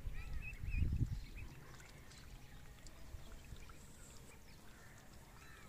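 Ducklings peeping in short arched chirps, a cluster of them in the first second and fainter, scattered peeps after. A low rumble on the microphone is the loudest sound for the first second or so.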